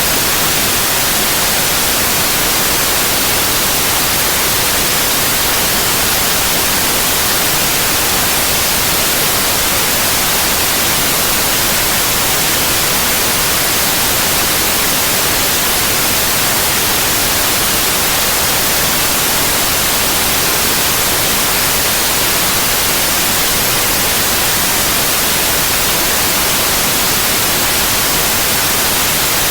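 Synthetic white noise: a steady, even hiss.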